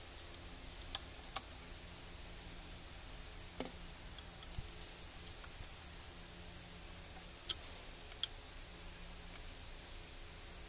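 Scattered sharp clicks and light metal taps of a hand wrench being worked on a bolt around the engine's coolant housing, a quick run of several clicks about five seconds in, over a faint steady hiss.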